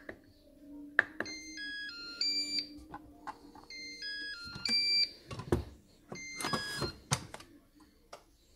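Moulinex Cookeo multicooker's control panel playing three short electronic jingles of stepped beeps, with sharp clicks from its control knob near the start and about a second in. Between the second and third jingles there are clunks and rattling as the lid is shut and locked. The last jingle confirms the start of preheating for pressure cooking.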